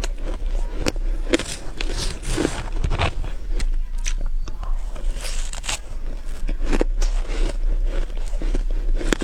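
Close-up bites and crunching of frozen green matcha ice: a rapid, irregular run of crisp, powdery crunches, over a low steady hum.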